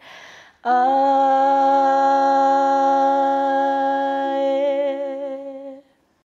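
Two young women singing a Māori waiata a cappella in two-part harmony: a quick breath, then one long held note that fades out and ends about six seconds in, closing the song.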